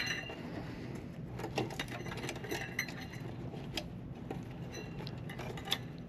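Small metallic clicks and clinks of hand tools and metal parts being handled while an old power supply is taken apart, scattered irregularly over a faint steady hum.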